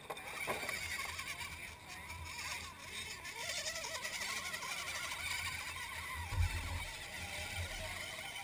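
Electric motor and gear whine of a 1/10-scale RC rock crawler working its way up a dirt slope close by, with a low thump about six seconds in.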